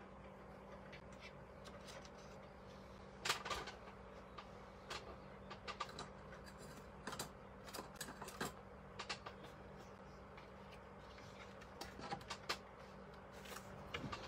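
Irregular light clicks and taps of things being handled at a desk, over a faint steady hum. Near the end a sheet of watercolour paper is lifted away, with a short flurry of handling noise.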